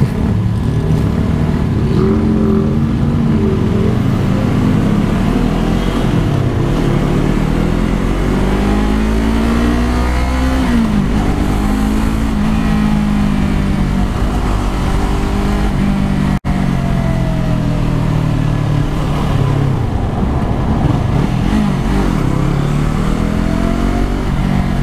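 Yamaha R3 sport bike's 321 cc parallel-twin engine running while riding, its note rising and falling repeatedly with throttle and gear changes.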